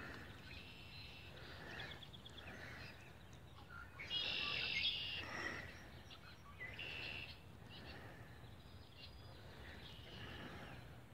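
Songbirds chirping and calling, with a louder trill about four seconds in.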